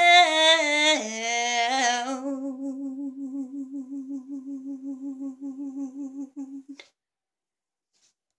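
A woman's unaccompanied singing voice holds a high note that breaks off about a second in. She then hums a lower note with a quick waver, fading gradually until it cuts off suddenly.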